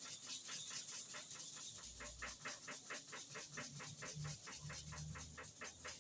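Clipper blade being sharpened by hand, rubbed back and forth in quick, even scraping strokes, about five a second.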